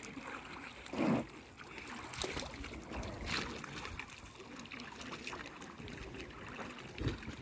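Oars of an inflatable rowing boat dipping and splashing in lake water, with a louder thump about a second in.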